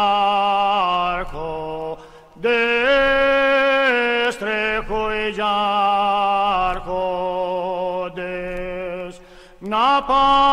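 Unaccompanied male singing of a Cretan rizitiko folk song: long held, ornamented notes that bend and waver, with short breaths about two seconds in and near the end.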